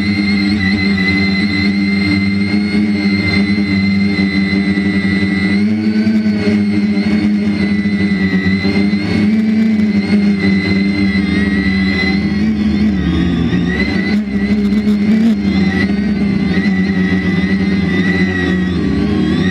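3DR IRIS+ quadcopter's motors and propellers whining steadily, heard from the drone itself, the pitch wavering slightly up and down as the throttle shifts in flight.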